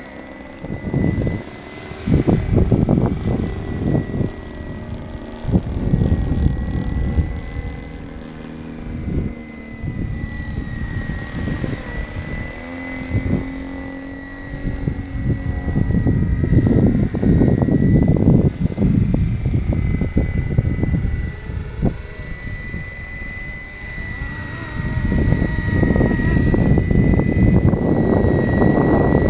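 470-size radio-controlled BO 105 scale helicopter in flight: a steady high whine from its motor and rotor drive that wavers slightly in pitch. Heavy gusting wind buffets the microphone, rising and falling and louder than the whine.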